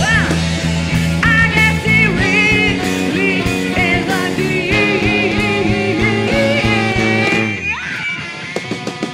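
Live rock band playing: bass, drums, electric guitar and saxophones under a wavering melody line. About three-quarters of the way through the full band drops out, leaving a few sparse plucked guitar notes.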